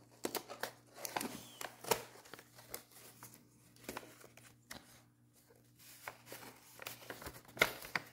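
Folded sheet of paper rustling and crinkling as it is handled, in irregular short crackles, the loudest one near the end.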